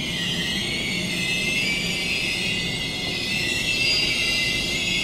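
Steel wheels of the Reading & Northern 2102 excursion train squealing against the rails: several high, wavering tones held steadily over the low rumble of the moving train.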